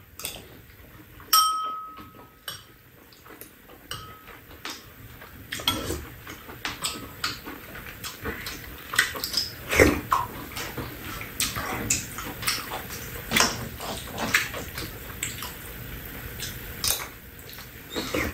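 Two people eating with metal spoons: irregular chewing, smacking and slurping, with spoons clinking against bowls and a pan, one clink ringing briefly about a second in.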